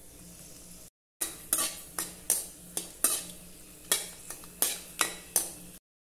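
Steel spoon scraping and knocking against a metal kadai while dried red chillies are stirred in hot oil: about ten sharp strokes at an uneven pace.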